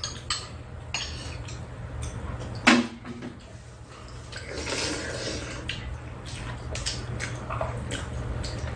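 Metal spoons and chopsticks clinking against soup bowls and a metal tray as two people eat, in scattered light clicks with one louder knock a little under three seconds in.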